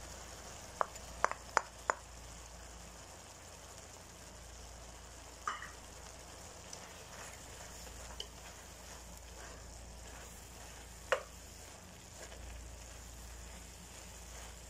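Chicken, potato and carrot filling sizzling in a frying pan as it is stirred with a wooden spatula, freshly spiced. A few sharp taps on the pan stand out, four close together about a second in and single ones later.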